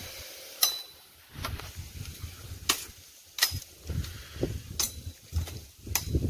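A cutlass chopping at a thin upright plant stalk: about six sharp strikes of the blade, roughly one a second, some with a brief metallic ring, with leaves and brush rustling in between.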